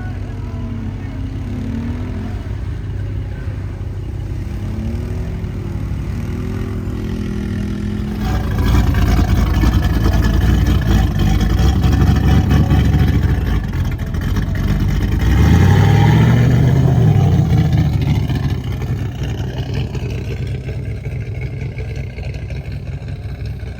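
Off-road vehicle's engine running, then revving hard from about eight seconds in. The pitch climbs and falls again around the middle, before it eases back to a lower steady run near the end.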